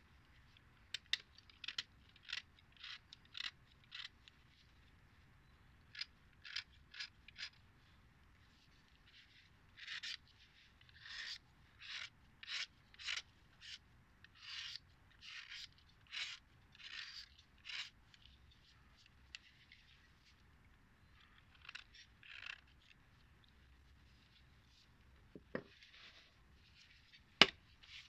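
A utility-knife blade scraping the outer layer off a block of Khrapovsky natural chalk: a run of short, dry scraping strokes, about two a second at first, then longer strokes, stopping after about 18 seconds with a few more later. A sharp knock near the end, as the knife is set down.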